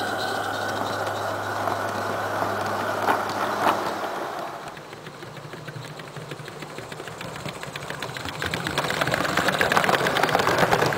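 Small-scale live-steam garden railway train running on its 32 mm gauge track: carriage wheels rolling over the rails in a steady rattling rumble, with two sharp clicks. After a drop in level, a fast ticking beat grows louder as the train runs past.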